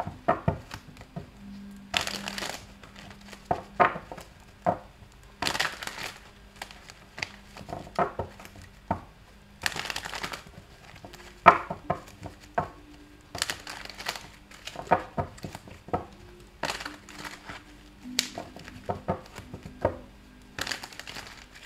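A tarot deck being shuffled by hand: quick clicks and taps of the cards, with a longer rustling riffle about every three to four seconds.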